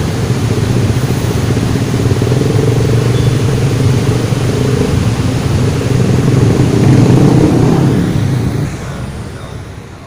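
A motor vehicle's engine running steadily, growing louder about seven seconds in and then fading away near the end.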